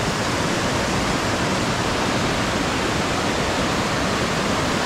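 Steady rush of a fast-flowing river's water.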